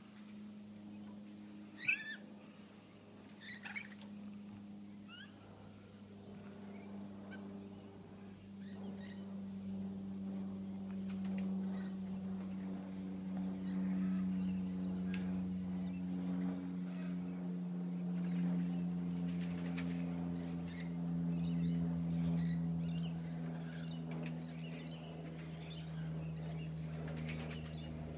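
Parrots giving a few short squawks, the loudest about two seconds in, with more chirping near the end. Under them runs a steady low mechanical drone that grows louder partway through and slowly sinks in pitch.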